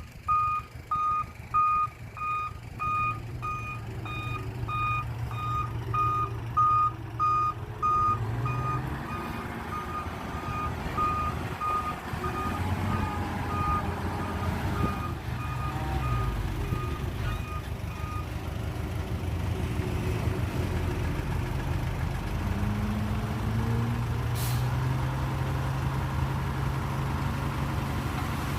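A heavy diesel construction vehicle's reversing alarm sounding a steady run of short high beeps over the low rumble of its engine. The beeping stops about two-thirds of the way through, while the engine runs on and revs up and down several times.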